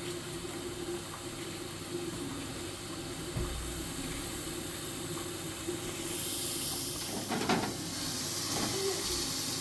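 Food frying in a pan on the stove: a steady hiss that grows louder and brighter about six seconds in, as the sizzle picks up. A short clatter comes about a second and a half later.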